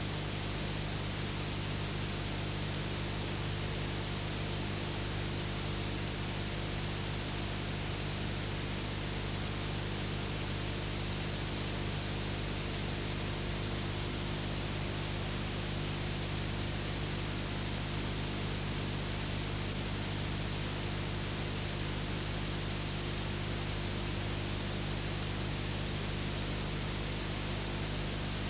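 Steady hiss with a low, unchanging hum and no other sound: background noise from the old film's transfer, with no programme sound on the track.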